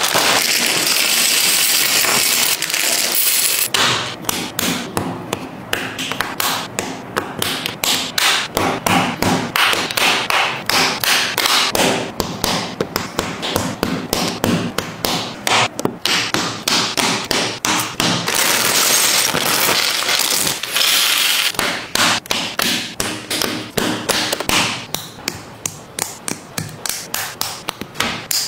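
Plastic building bricks being handled and snapped onto a baseplate: many sharp clicks and taps in quick, uneven succession as plates are pressed down. The first few seconds hold a dense rustle of plastic bags and loose pieces rattling.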